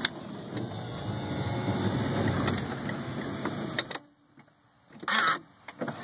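2005 Toyota Sienna power sliding door run from its button: the electric door motor and mechanism whir steadily for about four seconds, then stop with a click. A loud clunk follows about five seconds in.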